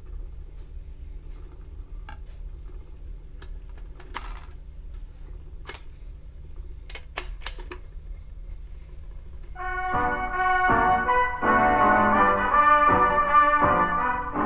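Record player being started: scattered sharp clicks over a low steady hum as the single is set on the turntable and the stylus lowered. About ten seconds in, music from the record comes in loud.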